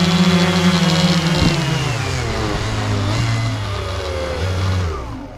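F450 quadcopter's four brushless motors and propellers humming, heard from the GoPro on board. A knock comes about a second and a half in, then the pitch sinks and the motors spin down and stop near the end as the drone comes down to land.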